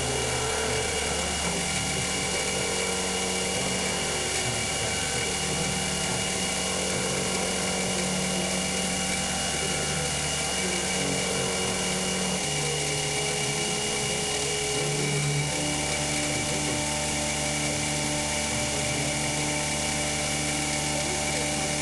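CNC milling machine running a cut through stacked 5052 aluminium plates: a steady high spindle whine over machining noise. The lower motor tones shift in pitch about twelve seconds in and again about fifteen seconds in.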